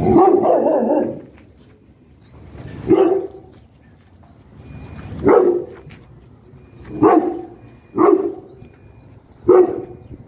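A dog barking: a longer run of barking at the start, then five single barks one to two seconds apart.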